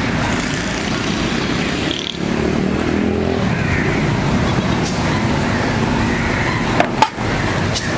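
Busy street noise: motor traffic running past with people talking in the background, and a couple of sharp clicks about seven seconds in.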